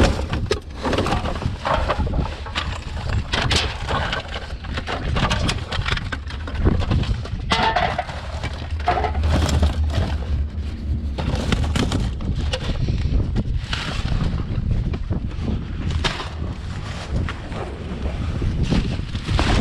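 Rubbish being rummaged through and pulled out of a dumpster: frequent knocks, clatter and rustling, over a steady low rumble of wind buffeting the microphone.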